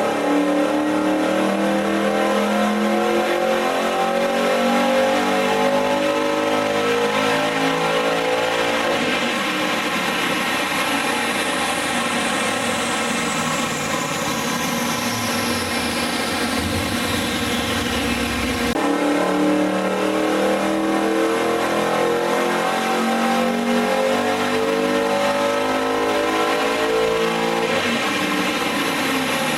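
Holden VZ Commodore's cammed L76 6.0-litre V8, breathing through extractors and a twin 3-inch exhaust, making full-throttle pulls on a chassis dynamometer. The engine note climbs steadily in pitch, drops back abruptly about 19 seconds in, then climbs again.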